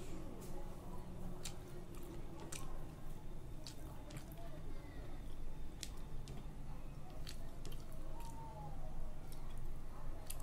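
Eating rice and curry by hand: fingers squishing and mixing the food on a plate, with wet chewing and mouth clicks scattered throughout, over a steady low hum.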